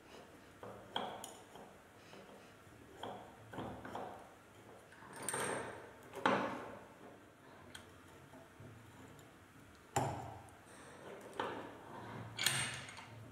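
Irregular light metallic clicks and clinks, about a dozen in all, from hand-tapping a thread into a steel die-holder body held in a bench vise and handling the tap and the part.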